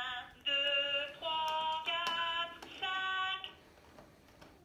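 Children's electronic toy piano played key by key by an African grey parrot's beak: a run of about five short electronic notes at different pitches, each held about half a second, ending about three and a half seconds in.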